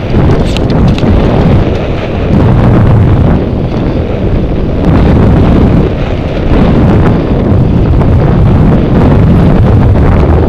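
Loud wind buffeting on an action camera's microphone during a fast bike descent on a dirt trail, with constant rattling and knocking of the bike over roots and ruts.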